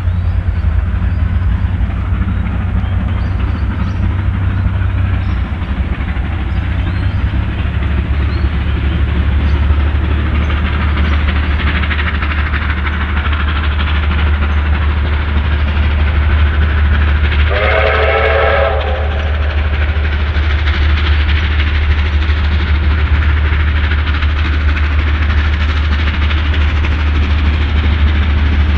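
Steam locomotives R707, A66 and N453 working hard, hauling a train uphill toward the listener: a steady, heavy exhaust over a constant deep rumble. About two-thirds of the way through, a multi-note steam whistle sounds once for about a second and a half.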